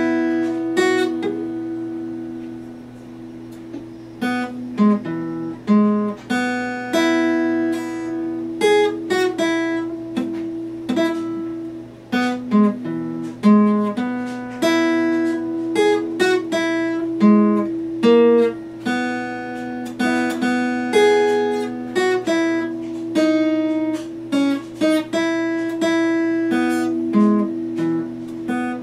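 Epiphone steel-string acoustic guitar played solo, picked notes and chords ringing one after another. About two seconds in, a chord is left to ring out and fade before the picking starts again.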